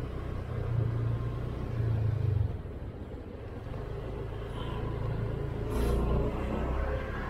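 Honda Click 125i scooter's single-cylinder engine running at low riding speed, with road noise. The engine note drops about two and a half seconds in, and a short hiss comes near six seconds in.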